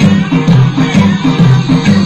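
Electronic dance music played very loud through a large homemade sound-system stack of 18-inch subwoofers and Cerwin Vega Earthquake-style sub boxes, with a heavy, pulsing bass beat.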